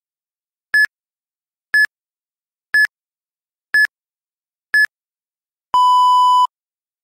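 Electronic interval-timer countdown: five short, high beeps one second apart, then one longer, lower beep, marking the switch to the next one-minute run or recovery interval.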